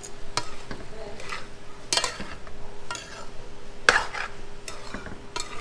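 Spoon scraping and knocking around a pot as frying sausage is stirred and turned, in separate strokes every second or two, the loudest about four seconds in, over a light sizzle.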